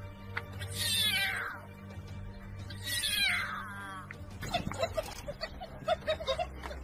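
Lion cub mewing: two high, falling cries about two seconds apart, with a low music drone underneath.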